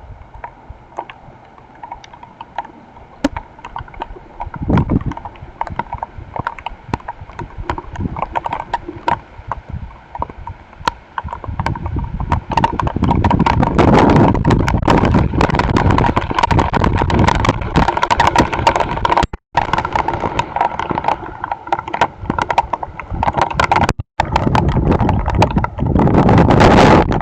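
Hailstones striking around a trail camera: scattered sharp ticks that turn into a dense, loud clatter about twelve seconds in, with low wind rumble buffeting the microphone. The sound cuts out briefly twice near the end.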